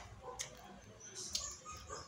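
A person eating rice by hand from a plastic plate: two sharp mouth and lip clicks as a handful goes into the mouth. Faint, short, high chirps begin near the end.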